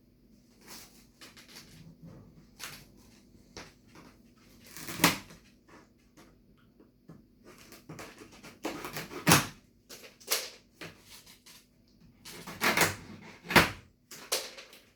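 Irregular knocks, thuds and rustles of packaging being handled on a boxed washing machine, with a few sharper bangs about five, nine and thirteen seconds in.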